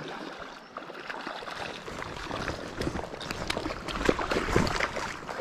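A hooked rainbow trout splashing and thrashing in shallow water as it is drawn onto the river's edge, with irregular splashes that grow busier and louder from about two seconds in, over the steady rush of the river.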